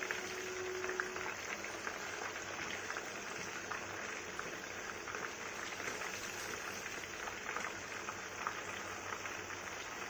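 Marinated chicken pieces deep-frying in hot oil in a pan: a steady sizzle with a dense patter of small crackles.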